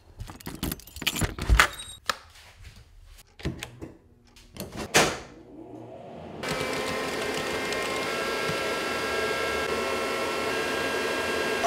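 A door latch clicks and knocks as a shop door is opened and handled. About six seconds in, a Haas CNC mill, just powered up with its axes not yet homed, starts a steady hum with fan noise and several held tones.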